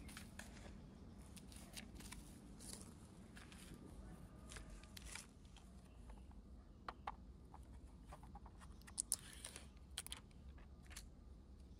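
Faint scattered clicks, snips and rustles over a low steady hum, with a few sharper clicks about two-thirds of the way through.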